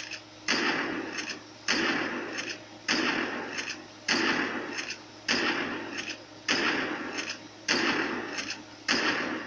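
A shotgun sound repeated eight times, about one every 1.2 seconds; each blast starts suddenly and fades away as a hiss over about half a second.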